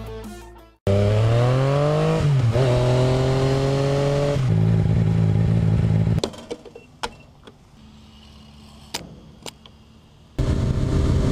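Yamaha FZ-09 motorcycle's inline-three engine accelerating, its pitch climbing, dipping briefly at a gear change, climbing again, then holding steady. About six seconds in the engine sound gives way to a much quieter stretch with a few sharp clicks. Near the end the loud, steady engine note returns with wind noise.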